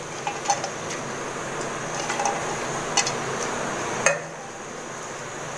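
Aluminium pressure cooker pot of soaked dal and water being handled: a few light knocks and clinks, the loudest about four seconds in, over a steady hiss.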